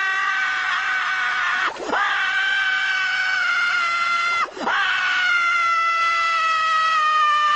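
Squidward's scream from SpongeBob SquarePants, played as a sound effect: a long, high, held cartoon scream, broken twice by brief pauses for breath. The last stretch slides slowly down in pitch.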